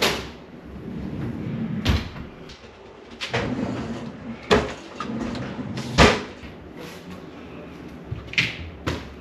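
Kitchen drawers and cupboard doors being pulled open and pushed shut, with items rattling inside. Sharp knocks and bangs come every second or two, the loudest at the very start and about six seconds in.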